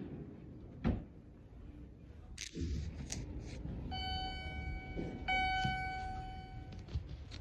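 A steady, high, electronic-sounding beep tone, heard twice in a row for over a second each, over a low background rumble, with a sharp click about a second in.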